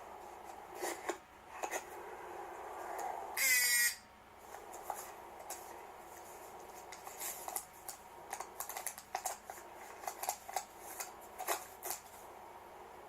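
Papers and cards being handled and leafed through, a run of small rustles and clicks, with one short loud rasp about three and a half seconds in.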